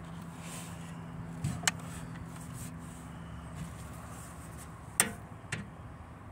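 A faint steady low hum, with two sharp clicks, about a second and a half in and about five seconds in.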